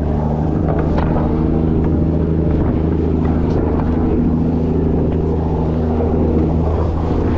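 Container ship's engine machinery running with a steady, deep drone of several held low tones.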